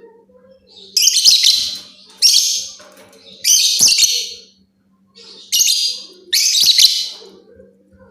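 Lovebird chirping in five loud bursts of rapid, shrill chatter, each under a second long, with short pauses between them.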